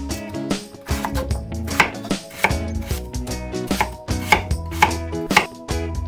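Chef's knife chopping peeled raw potatoes into cubes on a wooden cutting board, the blade knocking against the board about twice a second.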